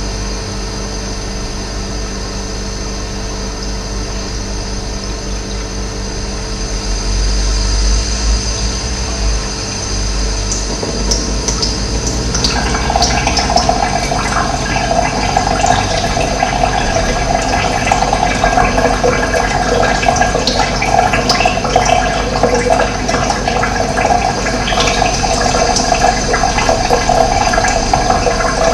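Running water flowing steadily, growing louder and fuller about eleven to twelve seconds in.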